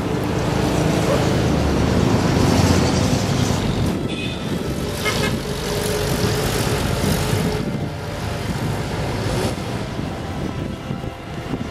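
Outdoor shoreline ambience: a steady rushing noise over a low rumble, with a faint held tone coming and going in the middle.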